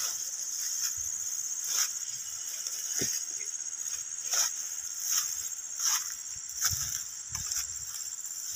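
Steady high-pitched drone of insects, with scattered rustles and footsteps through leafy plants at irregular intervals.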